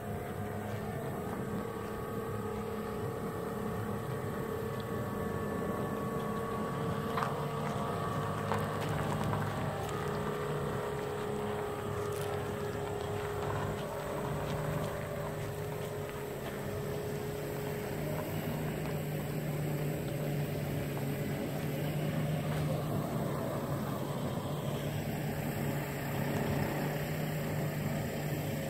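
A heavy truck's diesel engine running at low, steady revs as it slowly pulls a fifth-wheel RV and a trailing tote dolly.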